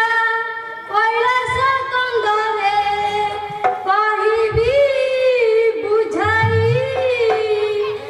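A girl singing a slow melody in long, held notes that slide and waver, with music accompanying.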